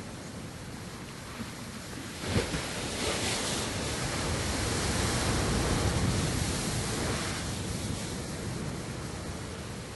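Sea waves breaking against a rocky cliff: a sharp crash about two seconds in, then a rush of surf that builds to its loudest midway and slowly ebbs away.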